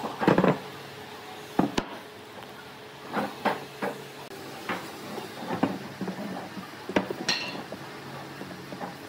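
Thick wooden tree-trunk slices being set down and shifted on a wooden workbench: irregular knocks and thuds of wood on wood, about ten in all, with a brief squeak near the end, over a faint steady hum.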